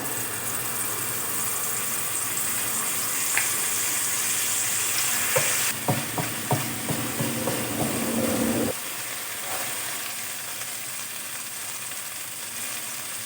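Chili and garlic paste sizzling as it fries in hot oil in a pan. A utensil scrapes and knocks against the pan for a few seconds in the middle as it is stirred, and after about nine seconds the sizzle settles a little quieter.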